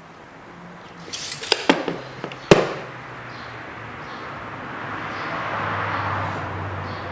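Metal parts and hand tools clicking and clacking against each other in a quick cluster of sharp knocks, the loudest coming last, about two and a half seconds in. A steady rushing noise then swells up.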